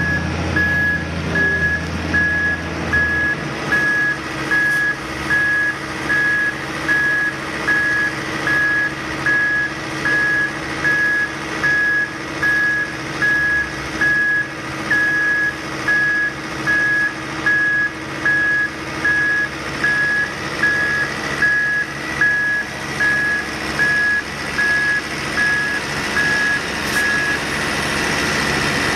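Backup alarm of a heavy construction vehicle beeping at a steady pace, about once a second, over its running engine. The beeping stops near the end.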